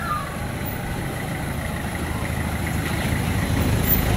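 Motor vehicle engine idling, a steady low rumble that grows slightly louder near the end.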